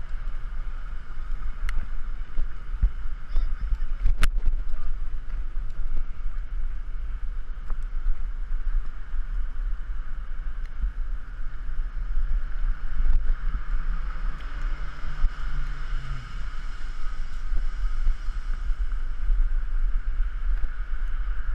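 Wind buffeting a GoPro's microphone while riding a bicycle along a city street, a steady rumble with rolling hiss. There is one sharp click about four seconds in, and a low hum rises and fades between about twelve and sixteen seconds.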